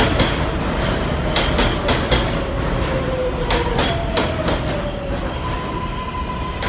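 New York City subway J train rolling slowly into an elevated station: wheels clacking over rail joints in irregular clicks over a steady rumble, with a whine that twice slides down in pitch as the train slows. A steady high tone joins near the end.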